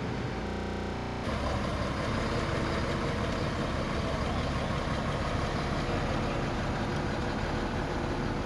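Semi-truck diesel engine running steadily as it tows a load, with a short glitch in the recording about half a second in.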